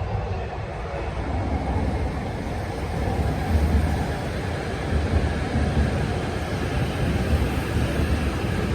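Train running, a steady low rumble with a rushing noise that grows a little louder about three seconds in.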